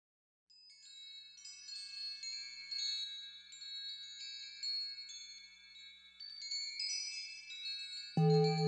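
Wind chimes tinkling: many high ringing notes struck and overlapping. Just before the end, a low, pulsing tone comes in beneath them.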